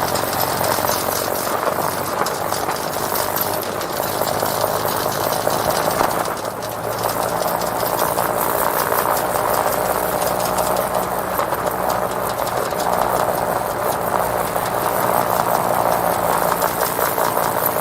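Vehicle with snow chains on its tyres driving over snow: the chains rattle and clink in a dense, rapid patter over the steady running of the engine, with the crunch of snow under the tyres. The sound briefly dips about six and a half seconds in.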